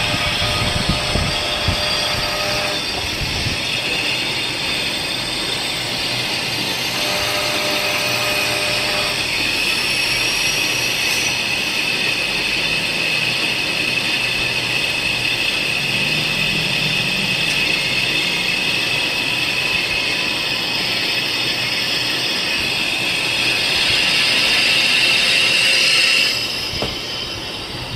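A workshop machine running with a steady high whine over a noisy mechanical din. It grows louder near the end, then drops off suddenly.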